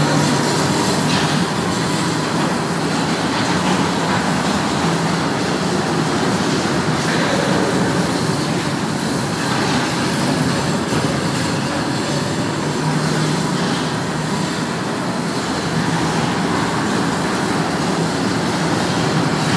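Children's mini caterpillar train running steadily, a continuous rumble of its drive and wheels heard from on board.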